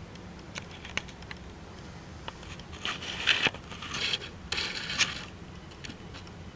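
Small objects being handled: a few light clicks and taps, then several brief scraping rustles in the middle.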